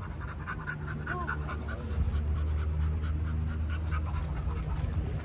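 An engine running steadily at idle, a constant low hum that grows louder about two seconds in.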